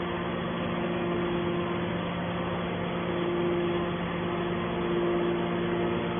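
Hydraulic metal baler's power unit running steadily: an even machine drone with a constant low tone and no knocks or breaks.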